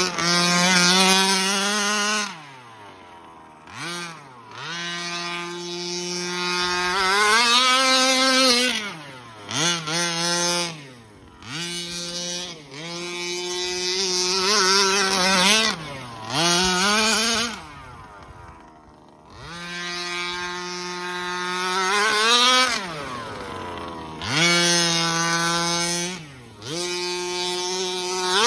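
The 36cc two-stroke gas engine of a Rovan Baja Terminator RC truck revving on laps: it holds a steady high pitch at full throttle, then drops away when the throttle is let off and winds back up, over and over.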